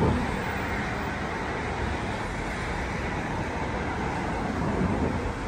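Steady hum of road traffic on a city street, cars and buses passing without letup.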